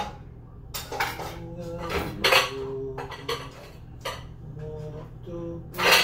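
Pots, pans and kitchen utensils clattering and clanking as someone rummages through a kitchen cabinet: a string of separate clanks with brief metallic ringing, the loudest near the end.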